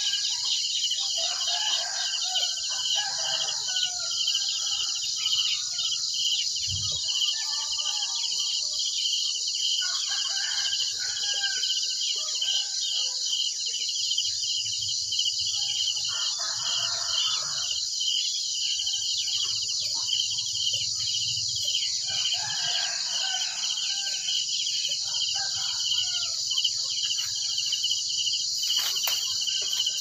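A steady chorus of crickets, its high even chirring the loudest thing throughout, with roosters crowing again and again every few seconds, each crow lasting a second or two and sounding fainter than the crickets.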